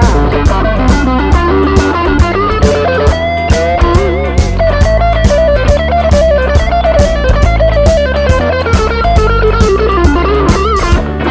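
Harley Benton Telecaster kit electric guitar played lead, with string bends and vibrato, over a backing track with drums.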